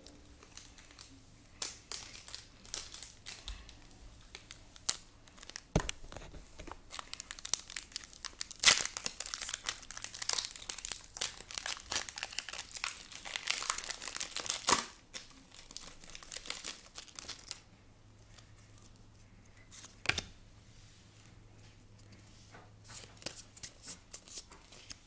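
Pokémon trading-card booster pack wrappers crinkling and tearing open, in bursts of crackling that are densest in the middle.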